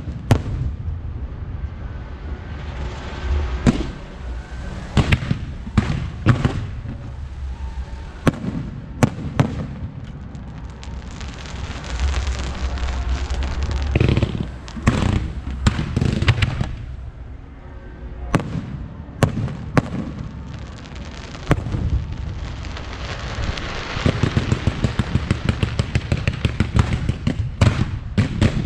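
Aerial fireworks going off: sharp bangs of bursting shells at irregular intervals over a low rumble, then a rapid run of many small crackling reports over the last few seconds.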